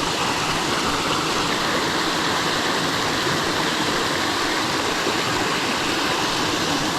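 Water from a small spillway running steadily, a constant rushing without breaks.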